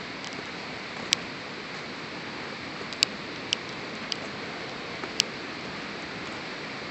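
Footsteps of shoes on the wooden ties of a railway trestle: short sharp clicks at irregular intervals, roughly one a second, over a steady hiss.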